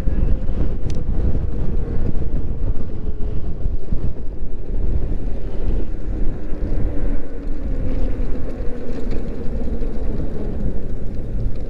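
Wind buffeting the microphone of a moving electric moped, a heavy, steady rumble, with a faint whine underneath that dips a little in pitch midway.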